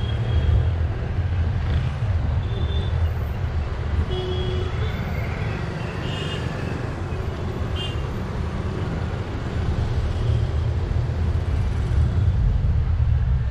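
Road and traffic noise while driving through city streets: a steady low rumble of engine and tyres, with a few brief high-pitched tones now and then.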